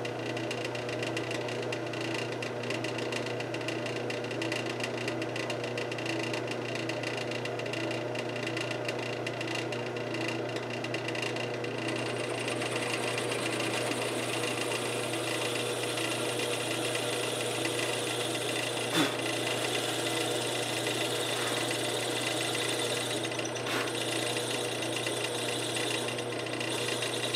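Drill press running steadily while its bit bores into a guitar body's wood, with a continuous motor hum and cutting noise. The cutting hiss grows brighter about twelve seconds in.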